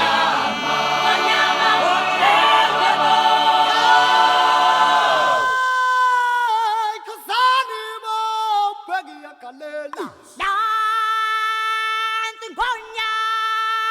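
Unaccompanied singing: a choir of voices sings together, then from about six seconds in a few voices hold long sustained notes with brief breaks between them.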